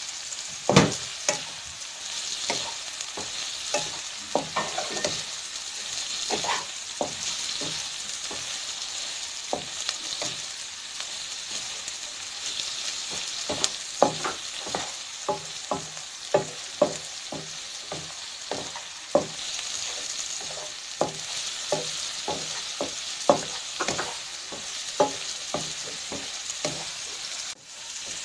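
Sliced onions sizzling in oil in a nonstick frying pan over a low flame, softening as they sauté. A slotted wooden spatula stirs them, knocking against the pan in frequent, irregular taps over the steady hiss.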